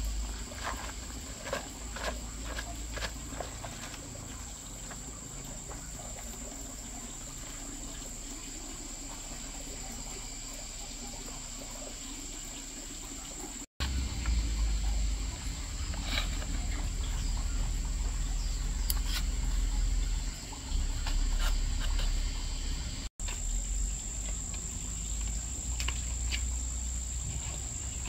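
Steady high-pitched insect trilling, like a chorus of crickets, with scattered light clicks and knocks and a low rumble.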